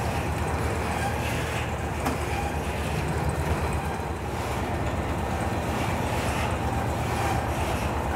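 Steady low drone of a fishing trawler's machinery in the fish-processing room below deck, with one faint click about two seconds in.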